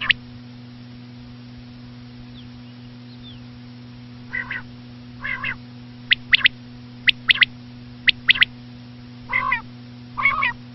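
Common quail calling: after a pause, rasping, grating notes, then sharp three-note 'whit, whit-it' phrases repeated about once a second.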